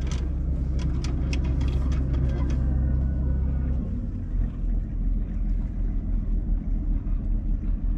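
Sailing yacht's inboard engine running, a steady low hum, with a few sharp clicks in the first couple of seconds. About four seconds in, the steady hum gives way to an uneven, pulsing rumble.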